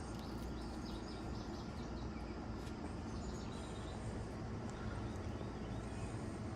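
Steady outdoor background noise with a low hum, and a few faint bird chirps.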